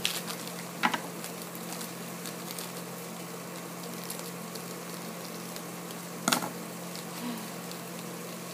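Small foil blind-bag packet crinkling as it is handled and cut open with scissors, with two sharper clicks, about a second in and again about six seconds in, over a steady low hum.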